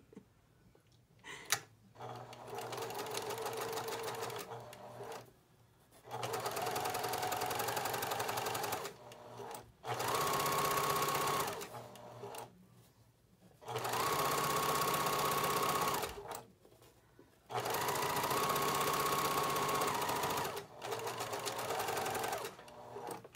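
Electric sewing machine stitching a fabric strap in six runs of a few seconds each with short pauses between; three of the runs go faster, with a higher hum. A single sharp click comes about a second and a half in, before the first run.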